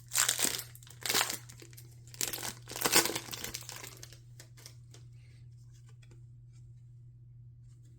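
Foil wrapper of a Pokémon TCG booster pack crinkling and being torn open, in four or five crackling bursts over the first few seconds, then only faint handling ticks.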